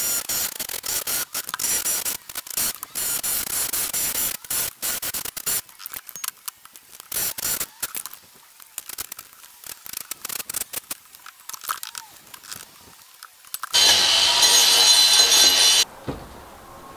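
Electric hammer drill with a chisel bit breaking out brickwork: rapid hammering with the motor whining and brick crunching, then scattered knocks of loose brick and debris. About fourteen seconds in there is a louder two-second burst of power-tool noise that starts and stops abruptly.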